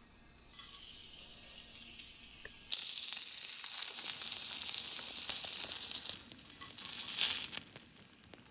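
Food sizzling on a hot barbecue pan, faint at first, then loud and sudden from about three seconds in, fading near the end.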